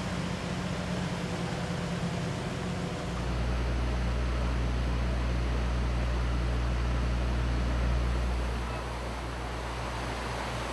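Boat engines running at sea, a steady drone mixed with wind and water noise. About three seconds in, a much deeper, louder rumble comes in. It eases again about two seconds before the end.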